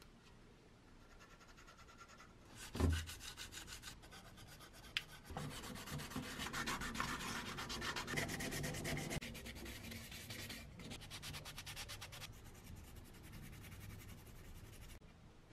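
Sandpaper rubbed by hand in quick strokes over the grey-primed parts of a vintage JEP toy speedboat, heaviest in the middle. A single thump comes about three seconds in and is the loudest moment.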